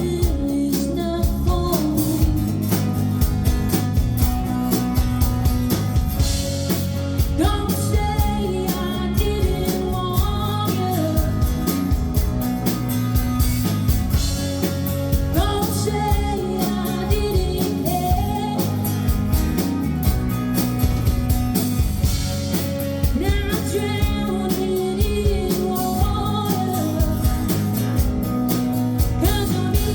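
A female singer performing a pop-rock song live with a band, her voice over guitar and drums with a steady beat.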